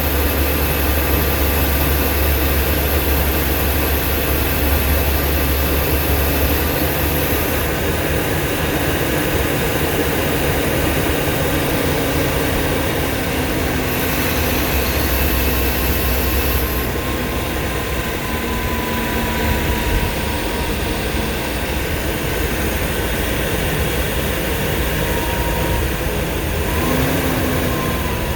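Blue Bird school bus under way, its engine and road noise running steadily. A heavier low rumble comes for the first seven seconds or so and again about fourteen seconds in.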